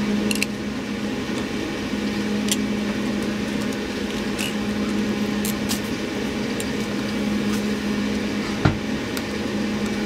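A steady low mechanical hum over background noise, with a few light clicks of a utility knife and cable being handled, and a single louder knock near the end.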